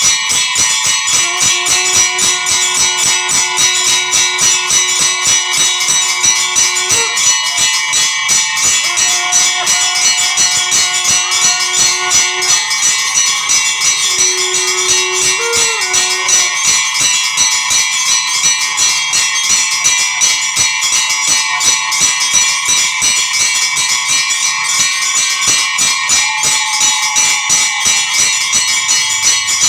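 Temple bells ringing rapidly and without a break during worship, a dense run of even strikes with a bright ringing tone. A few long, steady held notes sound over the bells, several seconds each, in the first half and again near the end.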